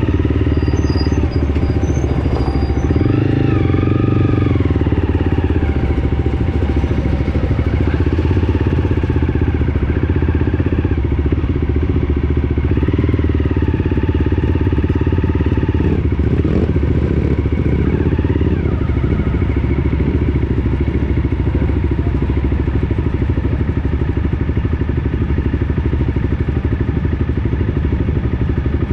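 Trail motorcycle engine running close by, its pitch rising and falling with the throttle a few times: about three seconds in, near the middle, and again a little later.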